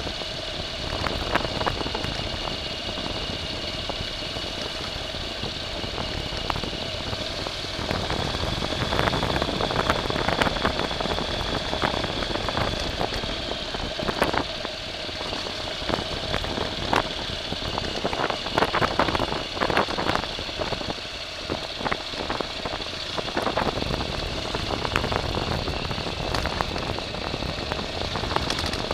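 A vehicle's motor running steadily with a high whine that shifts slightly in pitch, with frequent knocks and rattles, busiest from about eight seconds in.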